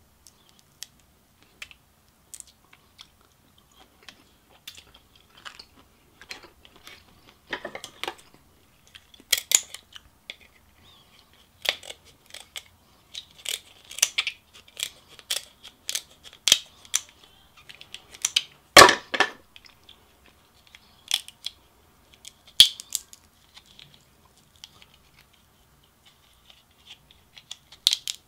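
King crab leg and crawfish shells being cracked, snipped with kitchen scissors and pulled apart by hand, with chewing in between. Scattered sharp cracks and clicks, sparse at first and thickest in the middle, with one loud crack about two-thirds of the way through.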